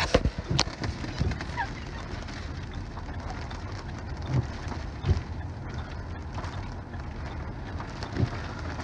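Thunderstorm wind and rain against a car, heard from inside the cabin: a steady rush with low buffeting rumble from the gusts, and a few sharp knocks scattered through it.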